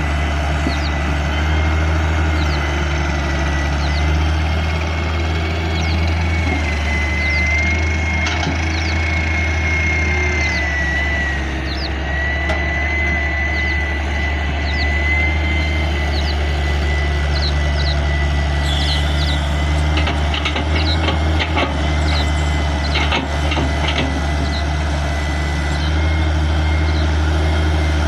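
Hitachi excavator's diesel engine running steadily under work, with a thin high whine that wavers in pitch for several seconds and scattered light clinks, more of them in the second half.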